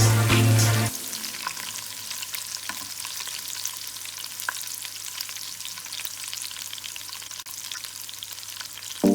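A tadka sizzling and crackling: hot oil frying garlic, green chillies, curry leaves and cumin, a steady hiss with fine pops. Background music cuts off about a second in.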